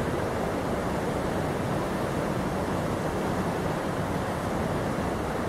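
Steady rushing of fast river water running over rapids.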